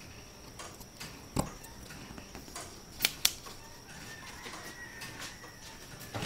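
Light clicks and taps of thin wooden gear cutouts being handled and set down on a wooden board, with two sharp clicks close together about three seconds in, over a faint steady high whine.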